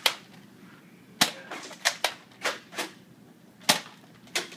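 Nerf foam-dart blasters clacking as they are primed and fired: about seven sharp plastic clicks and snaps, unevenly spaced, the loudest about a second in and near the end.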